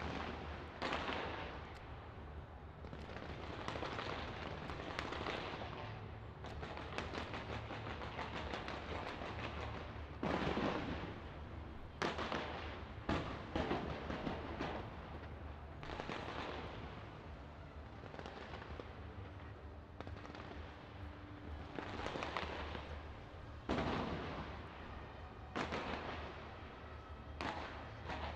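Fireworks display: sudden bursts every few seconds, each fading into crackle, with stretches of rapid crackling in between.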